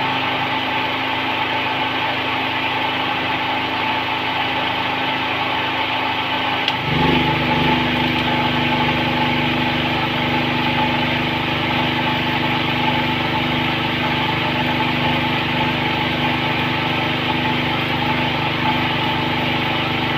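A small engine running steadily with a hiss over it; about seven seconds in, its low hum shifts and grows stronger, then holds steady.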